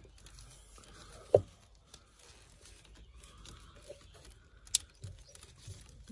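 Rubber-gloved hands handling a plastic wiring-harness connector, with light rustling, a single loud thump about a second in, and a sharp click later on as a part of the connector is pressed home and locks in.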